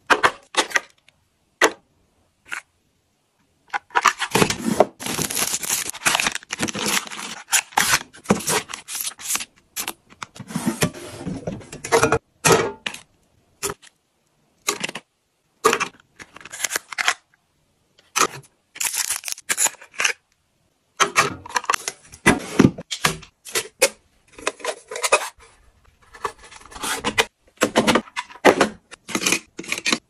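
Close-up handling of small cosmetic boxes, bottles and packets being set into a plastic drawer organizer: scraping, rustling and light clicks and taps of cardboard and plastic, in quick runs with silent gaps between.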